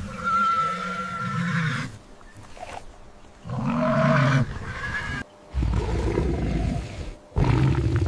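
Zebra calling: a drawn-out, whinny-like call, then a second shorter one about three and a half seconds in. From about five and a half seconds in come two low, rough calls.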